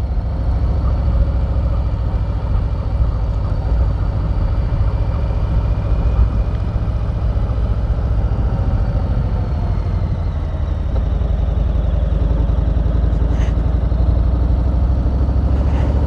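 Harley-Davidson Street Bob's Milwaukee-Eight 107 V-twin engine running steadily while the motorcycle is ridden, a loud low rumble.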